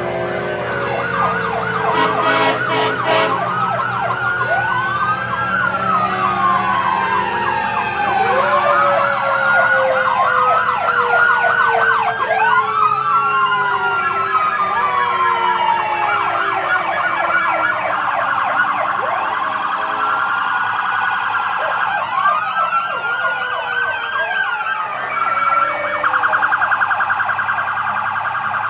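Several emergency vehicle sirens wailing at once, their pitches rising and falling out of step with one another, over a steady low rumble of truck engines. Near the end one siren switches to a rapid warble.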